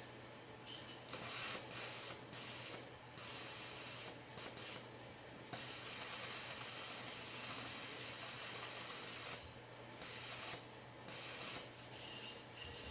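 Fuel injector being pulsed open on a battery for cleaning, spraying fluid into a tray with a hiss that comes in on-off spurts, with one longer spray of about four seconds in the middle.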